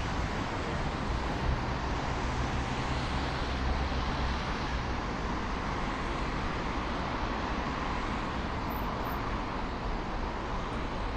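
Steady city road traffic with cars passing. A deeper engine rumble from a passing vehicle swells about a second in and fades by the middle.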